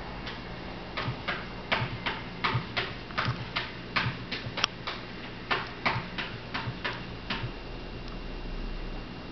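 A cat's paws and claws tapping and scratching at a framed photo: a quick, uneven run of short taps, about three a second, starting about a second in and stopping a couple of seconds before the end.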